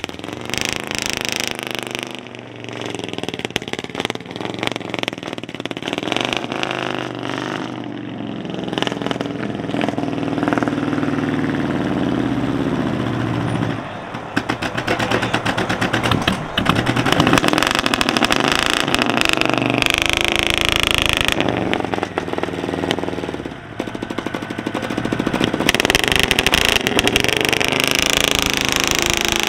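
Engine of a Volkswagen Beetle rat rod running as the car rolls slowly by, its revs rising and falling several times.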